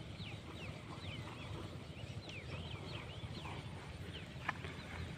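Birds chirping: a run of short, high, falling chirps, several a second, over a low steady rumble. There is a single sharp tap about four and a half seconds in.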